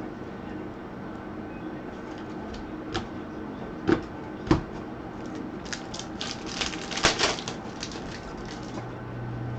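Trading cards and their packaging being handled: a few separate taps, then a run of quick crinkly crackles near the middle.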